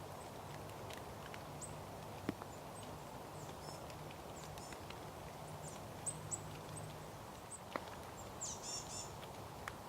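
Small tits giving short, thin, very high calls now and then, with a quick burst of twittering near the end. A few sharp clicks and a steady low hum lie under the calls.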